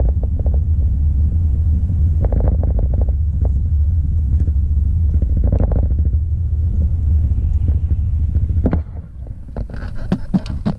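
Vehicle driving at highway speed, heard from inside the cabin: a steady low rumble of engine and road that drops suddenly to a quieter rumble about nine seconds in, with a few sharp clicks near the end.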